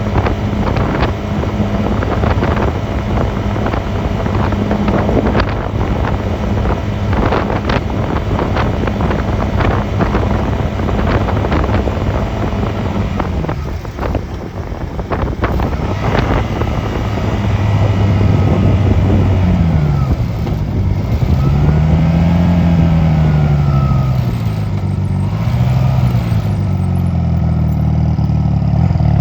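Honda 250cc motorcycle engine running under way, with wind buffeting over the microphone. About halfway through it eases off, then the engine pitch rises and falls several times as the rider accelerates, slows and shifts gears.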